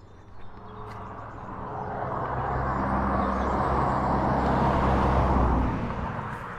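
A car driving past: its tyre and engine noise builds over a couple of seconds, peaks, then fades away.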